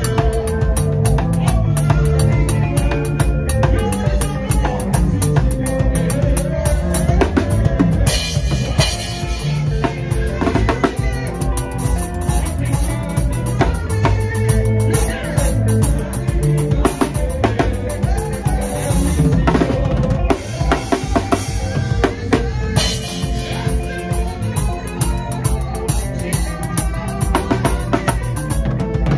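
Acoustic drum kit played hard and fast in an up-tempo African gospel groove: snare, rimshots and bass drum, over a band's bass line.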